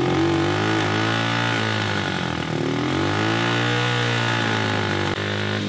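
The off-road go-kart's small four-stroke engine running just after starting, its speed sagging and rising slowly a couple of times rather than holding a steady idle.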